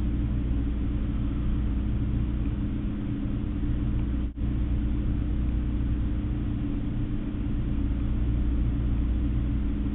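Steady low mechanical hum of room background noise, with several fixed low tones; it drops out for an instant a little over four seconds in.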